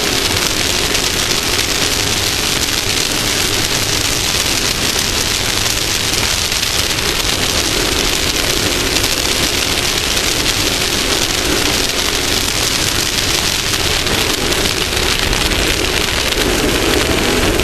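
Off-road race vehicle driving at speed: its engine runs steadily under a loud, even rush of wind and road noise on the front-mounted camera. The engine note grows stronger near the end.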